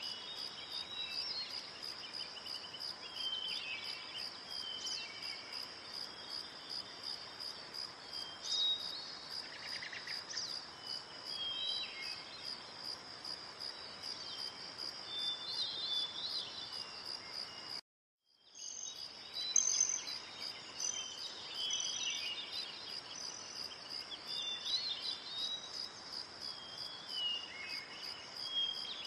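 Steady insect chirping, a high pulsing trill, with scattered short bird calls over it. The sound cuts out briefly about eighteen seconds in, then resumes.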